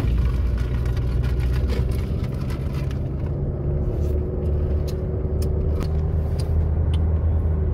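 Car running, heard from inside the cabin: a steady low rumble, with a few light clicks scattered through it.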